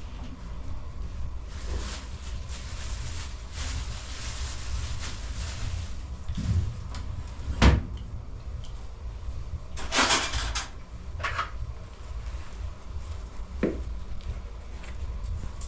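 A few knocks and thumps over a steady low rumble, the loudest a sharp knock about eight seconds in, followed by a short rustling scrape about ten seconds in and a lighter knock near the end.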